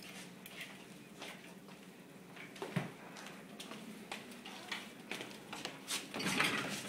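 Portable dishwasher being wheeled across the floor, with light clinks and rattles scattered throughout that grow busier about six seconds in.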